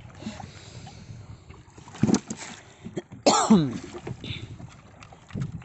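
Catch being moved from a plastic crate into a styrofoam cooler, with handling rustle and a solid thud about two seconds in as a fish lands. About a second later comes a short sound that slides steeply down in pitch.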